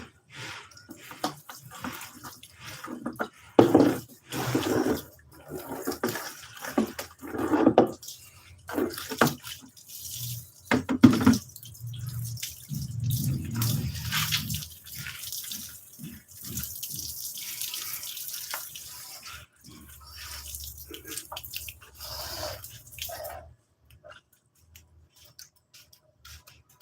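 Water from a tap splashing and running, with knocks and clatter of handling through the first half, then a steadier rush of water that stops a few seconds before the end.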